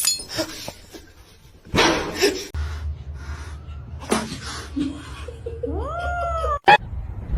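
A cat meowing: one drawn-out call that rises in pitch and then holds, about six seconds in. A short noisy burst comes a little under two seconds in.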